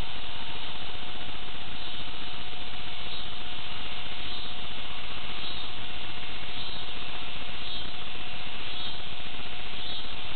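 Steady hiss of a small digital camera's recording noise, with a faint constant tone under it and a few faint high chirps.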